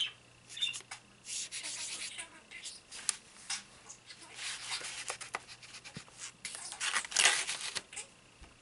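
Dry soft pastel being rubbed into paper with a small pad: a series of irregular scratchy rubbing strokes, loudest about seven seconds in.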